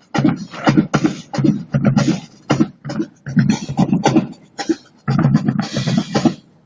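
A person beatboxing: quick, irregular vocal percussion sounds made with the mouth.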